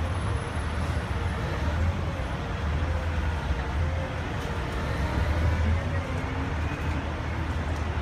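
Heavy tow truck's diesel engine running steadily, a low uneven rumble, with a faint wavering whine above it.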